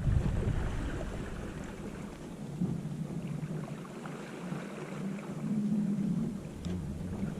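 Sailboat's inboard engine running steadily as a low hum under a hiss of water and wind.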